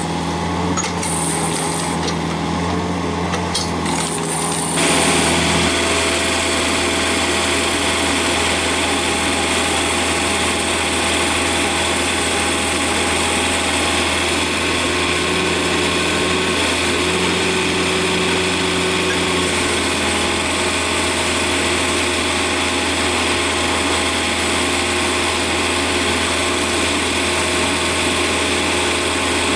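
Engine-driven stump grinder running steadily. About five seconds in, a louder, hissier grinding noise joins the engine and carries on.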